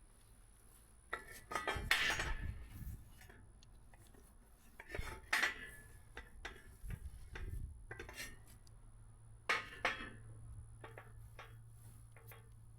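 Welded steel brackets clinking and scraping as they are handled and wiped down with solvent, in a few separate bursts of clatter with quieter rubbing between them.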